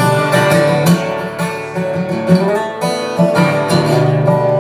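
Acoustic guitar strummed in a steady rhythm, chords ringing on between strokes, in an instrumental passage of a folk song.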